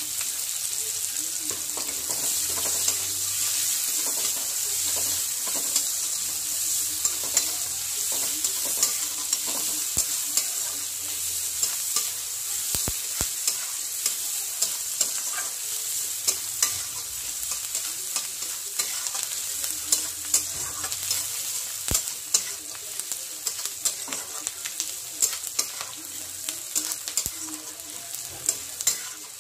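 Sliced onions hitting hot oil in a kadhai and frying with a steady sizzle that starts suddenly, while a spatula stirs them, scraping and clicking against the pan many times.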